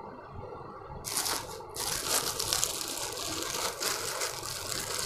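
Plastic garment packaging crinkling as it is handled, a dense crackly rustle starting about a second in.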